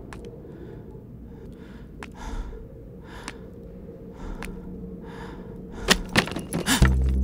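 A man breathing heavily and unevenly, each breath a soft gasp about every second, with a few faint clicks. Near the end come several sharp louder hits, and low dramatic music starts.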